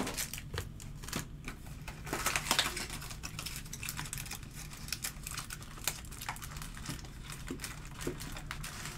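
Keyboard typing: quick, irregular faint clicks and taps, over a low steady hum.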